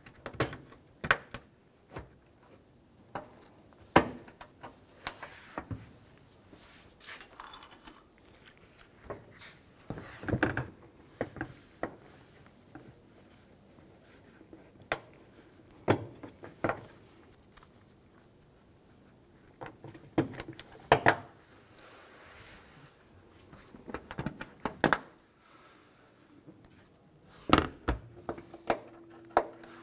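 Plastic push-pin retainers being pressed and locked into a plastic radiator core support cover: scattered sharp clicks and snaps at irregular intervals, with quiet handling of the plastic in between.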